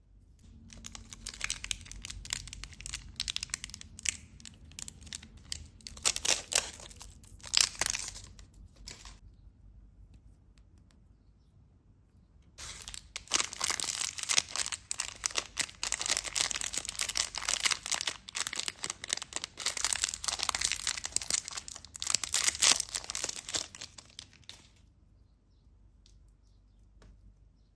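Candy and chocolate wrappers being torn open and crinkled by hand, in two long spells of dense crackling separated by a pause of a few seconds.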